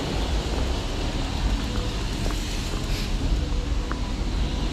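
Wind buffeting the camera microphone while the road bike rides, a steady low rumble with a few faint ticks.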